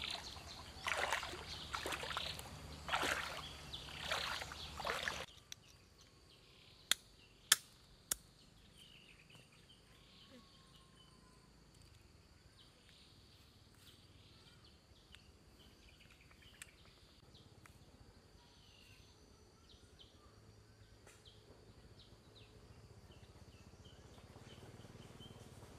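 Water sloshing and splashing in about four loud bursts as a person wades through shallow floodwater. Then the sound drops suddenly to a quiet outdoor background with three sharp clicks and faint chirps.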